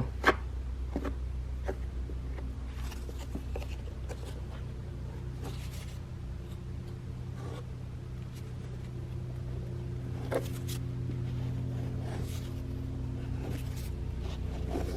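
Faint, irregular scraping and tapping of a plastic spreader working Bondo body filler onto a car's side skirt, over a steady low hum.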